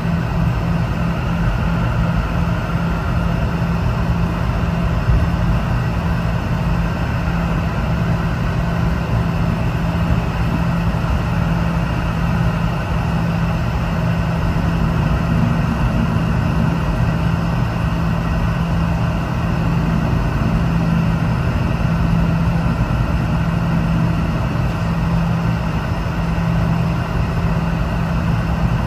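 Steady low drone inside the cabin of a Boeing 717-200 airliner before departure, the hum of the aircraft's air systems and engines, with a constant low tone under it.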